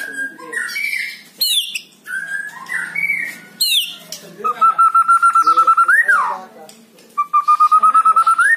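White-rumped shama singing: a string of short varied whistled phrases, then two long rapidly pulsed trilling notes, each ending in a quick upward sweep that drops away.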